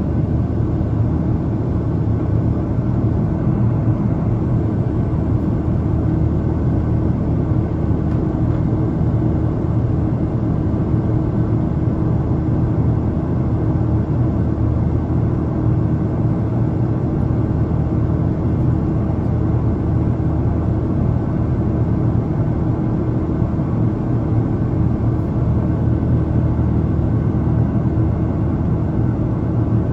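Steady cabin noise of an Airbus A330-900neo in flight: its Rolls-Royce Trent 7000 engines and the airflow make a constant low rumble with a faint steady hum in it.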